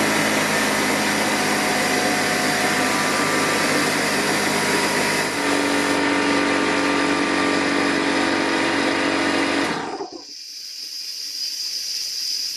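Craftsman pancake air compressor's motor and pump running steadily while filling the tank, changing tone about five seconds in. It cuts off a few seconds before the end and is followed by a steady hiss of air escaping from the tank's leak.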